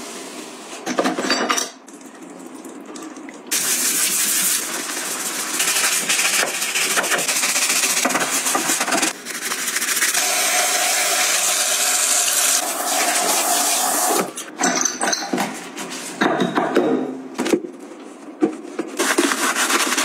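A small bristle brush scrubbing plastic sink-drain parts. The scrubbing is steady for about ten seconds, then breaks into shorter strokes and knocks of the plastic pieces near the end.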